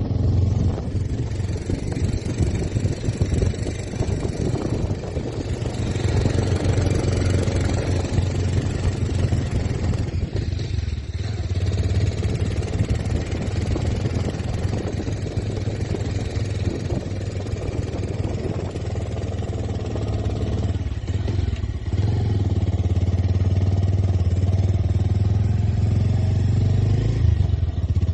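Bajaj Pulsar 150 motorcycle's single-cylinder four-stroke engine running with a steady low note. It dips briefly about ten seconds in and again around twenty-one seconds, then runs steadier and a little louder to the end.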